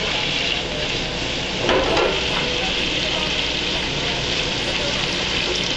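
Zucchini and yellow squash frying in hot oil in a pan: a steady sizzle.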